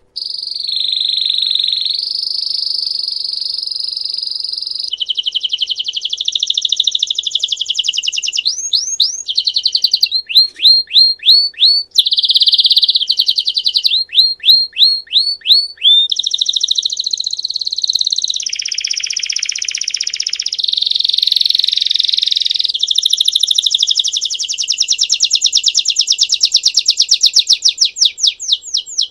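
Domestic canary of the Belgian ('Reino Belga') type singing a long, varied song in the 'bell' (campainha) style: held whistled notes and trills, then runs of quick repeated down-slurred notes about four or five a second. Near the end it goes into a fast rattling trill.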